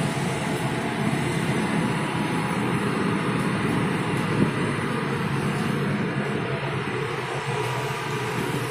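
Steady drone of the passenger ship KM Lawit under way, heard on its open deck: engine rumble mixed with the rush of wind and sea.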